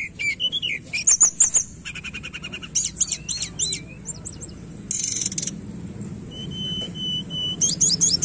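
Hill blue flycatcher (tledekan gunung) singing a varied song of quick chirps and rising-and-falling whistled notes. About a second in comes a fast run of clicking notes, near the middle a short hissing burst, and one steady whistle held for about a second near the end.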